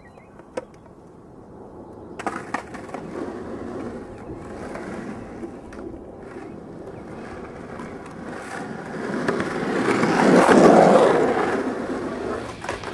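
Skateboard wheels rolling on pavement, growing louder to a peak about ten seconds in and then fading. A few sharp clicks come before it.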